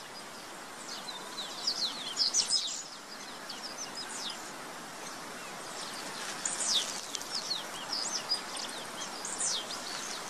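Small birds giving scattered short, high, downward-sweeping chirps, bunched about two seconds in and again around seven seconds, over a steady outdoor background hiss.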